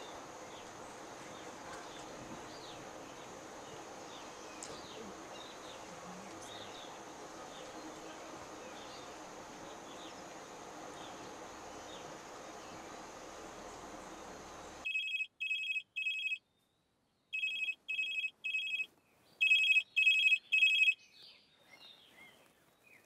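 Jungle ambience with a steady high drone and scattered chirps, which cuts off about fifteen seconds in. A mobile phone's electronic ringtone follows: three groups of three quick beeps, the last group loudest.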